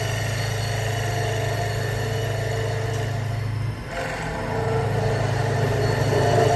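CNC wood lathe running, a steady machine hum with a few steady higher tones. It dips briefly about four seconds in and then picks up again.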